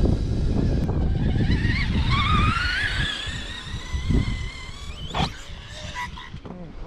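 Electric RC car's motor whining, rising in pitch as it speeds up and then fading, over low rumbling noise in the first couple of seconds. A sharp click comes about five seconds in.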